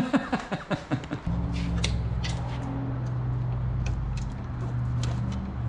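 A quick run of clicks for about a second, then a steady low mechanical hum that sets in suddenly and swells near the end, with faint scattered ticks of hand tools on metal.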